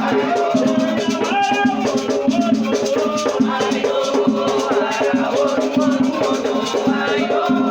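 Batuque ceremony music: drums and a shaker rattle keep a steady, fast rhythm under singing voices.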